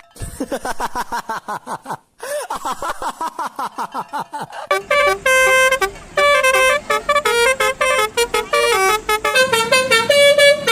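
A Basuri-style 'telolet' multi-tone bus horn plays a quick tune of stepping notes through the second half. Before it comes a run of rapid falling chirps.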